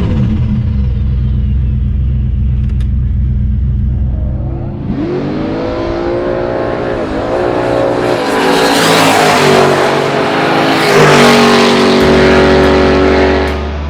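Turbocharged LS V8 in a Holden VN Commodore drag car accelerating hard down the strip. After a few seconds of steadier running, the revs climb in steps with short dips between them, as at gear changes, and it gets louder toward the end.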